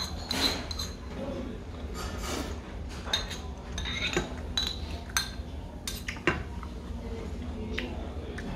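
A metal spoon clinks against a ceramic bowl a number of times, between short slurps of yukgaejang broth from the spoon.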